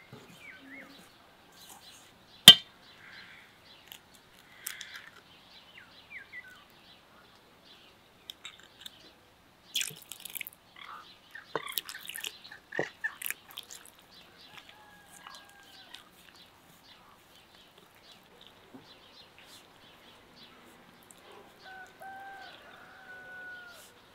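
Quiet outdoor ambience with soft handling sounds of a hand working flour in an enamel bowl, a sharp knock about two and a half seconds in, and water poured into the flour about twelve seconds in. Bird calls sound briefly about fifteen seconds in and again near the end.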